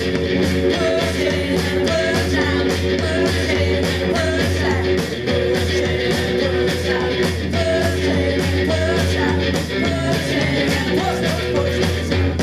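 Garage punk band playing live: distorted electric guitar and a steady drum beat, with a singing voice over them.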